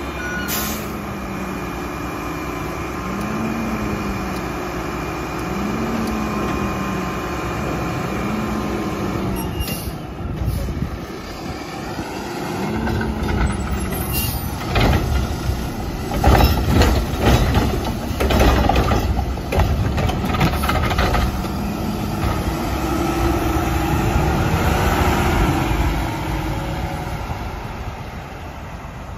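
Mack LR front-loader garbage truck running, its engine pitch rising and falling in short surges every few seconds as the hydraulic can arm lifts a cart over the cab. After about fifteen seconds comes a run of loud knocks and metal clanks as the cart is dumped into the hopper and brought back down.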